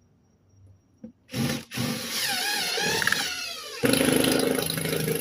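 Cordless power drill driving a long screw through siding into a stud. The motor starts about a second in with a wavering pitch as the trigger is feathered, then runs louder and steadier under load as the screw bites in.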